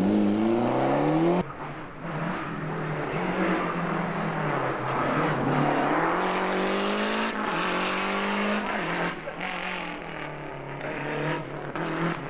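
Rally car engine at full throttle, its pitch climbing as it accelerates, breaking off abruptly about a second and a half in. It then climbs again in a long rising pull before turning choppier near the end.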